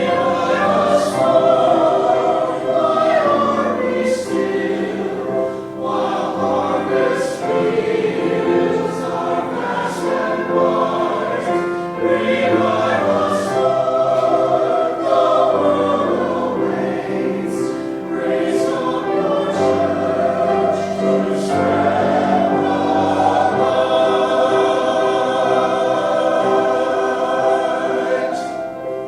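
Church choir singing a sacred piece, many voices together, settling into long held chords near the end.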